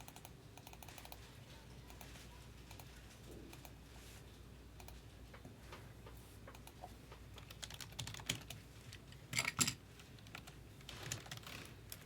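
Typing on a computer keyboard: light, irregular key clicks, with a louder run of keystrokes about eight to ten seconds in.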